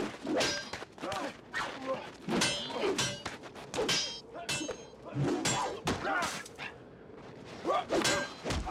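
Sword blades clashing: repeated sharp metal clangs that ring briefly, with a short lull near the end before two more clangs.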